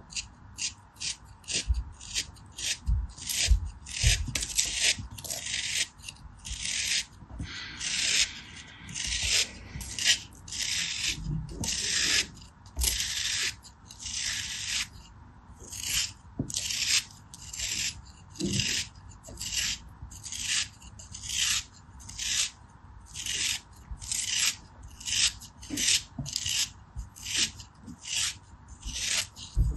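Craft knife blade slicing and scraping through a molded cone of kinetic sand in short repeated strokes, about one and a half a second, with a few longer strokes midway.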